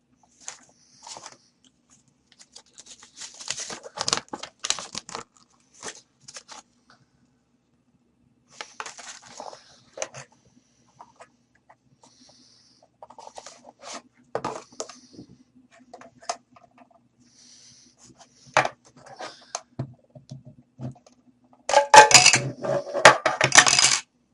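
Packaging and a small gadget being handled: scattered clicks, knocks, scrapes and rustles with pauses between them. Near the end comes a louder two-second run of rustling and clattering.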